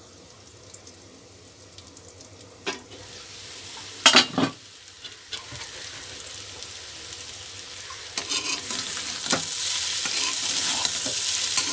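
A steel lid clatters as it is lifted off a karahi about four seconds in. Then a metal spatula stirs and scrapes through cauliflower and papaya frying in mustard oil, and the sizzle grows louder toward the end.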